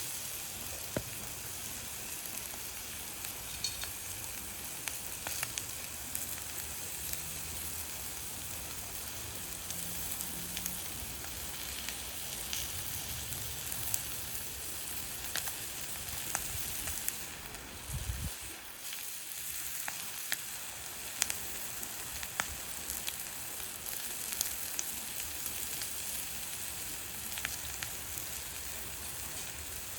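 Food sizzling as it fries in a pan over a high-heat wood stove fire, with scattered sharp clicks and taps throughout and a short low bump about 18 seconds in.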